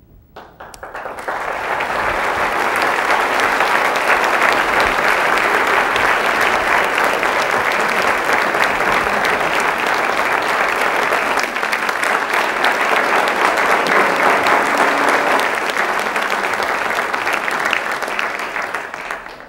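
Audience applauding: dense clapping that builds over the first second or two, holds steady for about seventeen seconds, and stops just before the end.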